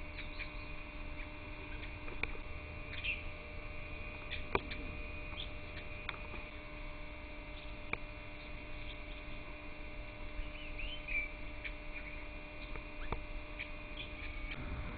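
Scattered short bird chirps and calls over a steady hum, with a few sharp clicks.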